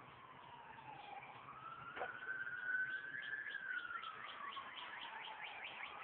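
Emergency vehicle siren wailing, its pitch sliding slowly down, up and down again, as a unit responds to a house fire. From about halfway a quicker run of short rising chirps sounds over the wail.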